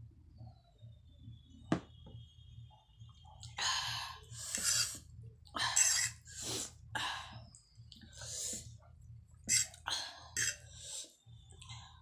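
Close-up eating sounds: a sip and swallow of cola with a sharp click about two seconds in, then a run of noisy chewing, slurping and fork-on-plate sounds as instant cheese ramen noodles are eaten.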